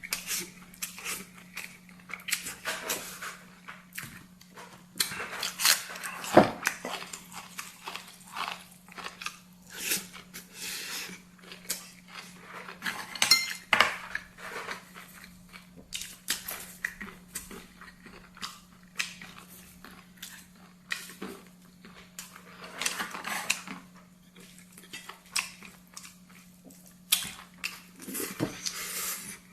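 Close-up eating sounds: chewing and crunching, with utensils clicking irregularly against bowls and plates. A steady low hum runs underneath.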